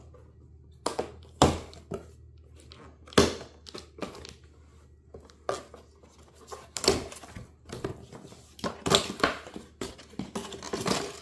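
A folding knife slitting packing tape on a cardboard shipping box, then the box flaps being pulled open and handled. The sounds come as irregular sharp scrapes and rustles, busiest in the last few seconds.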